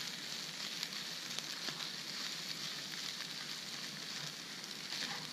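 Greasy breakfast food sizzling in a frying pan: a steady hiss with scattered small pops.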